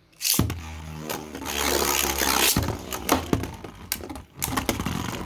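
Beyblades launched into a plastic stadium: a whirring launch about half a second in, then the spinning tops clashing, with a string of sharp clicks and knocks from about three seconds in.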